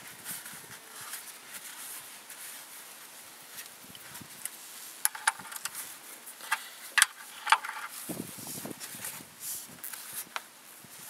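Hands with a cloth shop towel refitting the oil drain plug under the pickup: rustling and handling noise, with a few short, sharp metallic ticks about halfway through.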